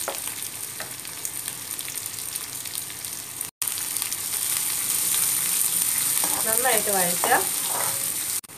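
Chopped shallots, garlic, green chillies and curry leaves sizzling in hot oil in an aluminium kadai while being stirred with a spatula, with light scrapes against the pan. The sizzle breaks off for an instant about halfway through.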